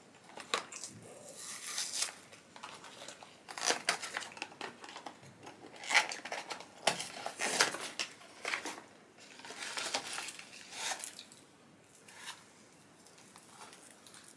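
Food packaging crinkling and tearing as it is handled and opened, in irregular rustling spells that die down near the end.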